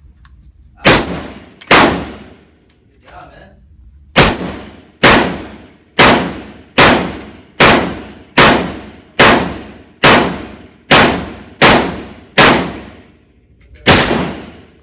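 Single gunshots fired one at a time at a shooting range, each with a short ringing tail. There are two shots, a pause of about two seconds, then a steady run of about a dozen shots a little under a second apart, and one last shot after a slightly longer gap.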